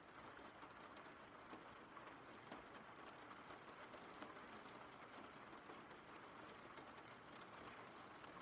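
Faint steady rain: a soft, even hiss with scattered small drop ticks.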